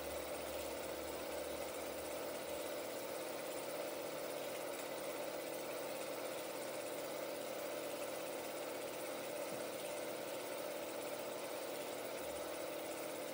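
16mm film projector running, a steady mechanical whir and rattle of its mechanism. A low hum under it drops out about two and a half seconds in and comes back near the end.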